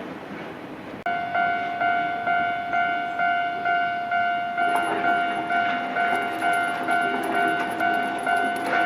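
Level-crossing warning bell ringing at about two strikes a second, starting abruptly about a second in. From about halfway, a second, lower ringing tone and a fast clicking rattle join it.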